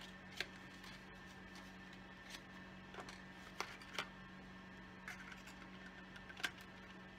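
Soft, scattered clicks and taps of small cosmetic boxes and a liquid lipstick tube being handled, about eight in all, over a faint steady hum.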